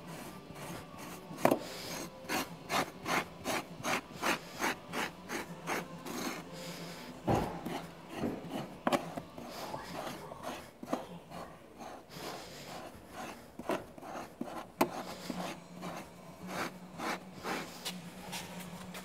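Pumice stone scraped back and forth over car floor carpet in quick, rhythmic rasping strokes, about two to three a second, raking embedded dog hair out of the pile.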